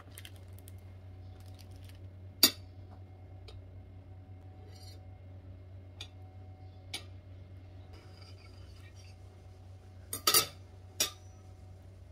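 Table knife clinking and tapping on a ceramic plate as chocolate spread goes on toast and the sandwich is cut: one sharp clink about two and a half seconds in, a few light taps, then a quick run of clinks near the end.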